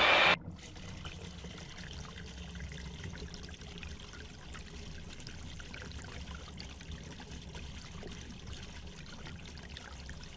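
A loud hiss cuts off about half a second in. Water trickling follows, steady over a low rumble.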